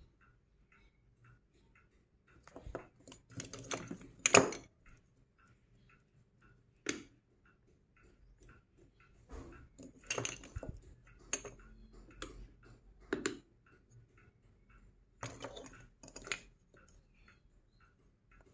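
Plastic magnetic sticks and balls of a construction toy clicking and snapping together and rattling as pieces are pulled off and attached, in scattered bursts, the loudest about four seconds in. A faint steady ticking, about two a second, runs underneath.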